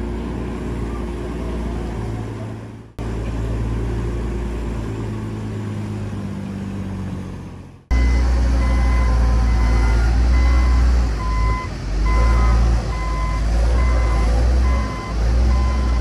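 Heavy diesel earthmoving machinery running. After an abrupt cut about eight seconds in, a louder engine carries on with a backup alarm beeping in a steady rhythm, about once a second: the machine is reversing.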